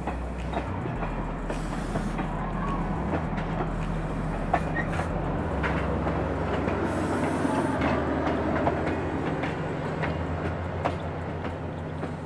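Ontario Northland passenger train passing close by: wheels clicking over rail joints and steel rumbling under the coaches, over the steady low hum of the diesel locomotive, which comes past near the end. The sound swells to its loudest about two-thirds of the way through, then eases.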